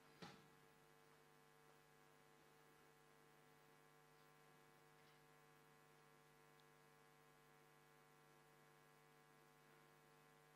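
Near silence with a faint steady electrical hum, and one faint click just after the start.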